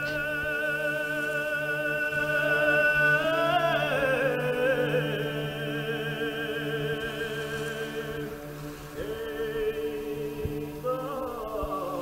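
Background music for a stage drama: a melody of long, wavering held notes over a steady low drone, shifting to new notes about 3 to 4 seconds in and again near the end.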